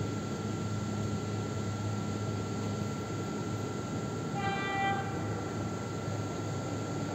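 Electric commuter train sounding its horn in one short blast about four and a half seconds in, over a steady low rumble.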